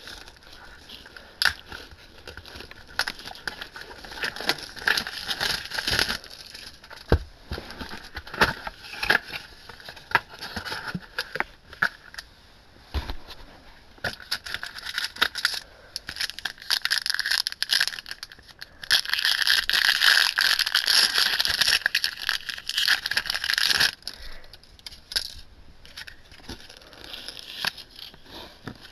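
Plastic and foil wrappers crinkling and tearing with sharp clicks and rustles as a Yu-Gi-Oh! booster box is opened, its booster packs torn open and the cards handled. There is a louder unbroken stretch of crinkling about two-thirds of the way through.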